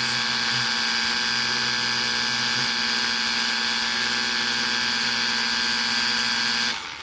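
Ryobi One+ 18-volt cordless pressure washer running: the steady hum of its electric pump over the hiss of the water jet spraying an engine oil pan on asphalt. It cuts off suddenly near the end.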